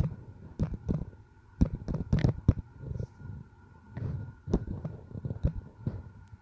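Fingers tapping on a smartphone's touchscreen while typing on the on-screen keyboard: an irregular run of short taps, several a second, over a faint steady hum.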